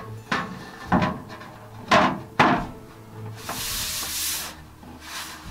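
Metal poster plate knocking against its wall magnets as it is repositioned: four sharp clacks in the first two and a half seconds, then about a second of rubbing as the plate is slid and pressed flat by hand.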